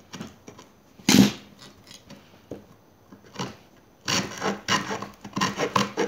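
Small saw blade of a SOG multi-tool cutting a wooden stick held in a bench vise: a sharp knock about a second in and a few light scrapes, then quick rasping back-and-forth saw strokes from about four seconds in.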